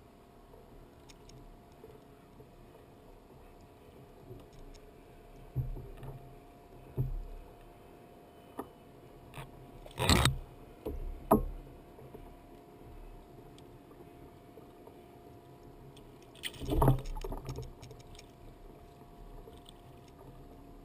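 Scattered knocks and thumps on a plastic kayak, about five in all, the loudest two about halfway through and near the end, over a faint steady hum.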